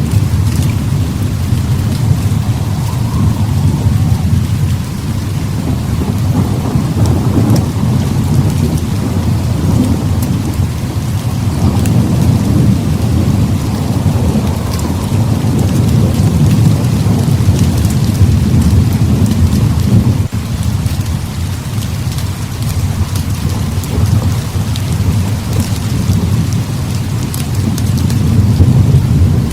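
Heavy rain falls steadily under a continuous rolling rumble of thunder, which swells and eases over several seconds at a time.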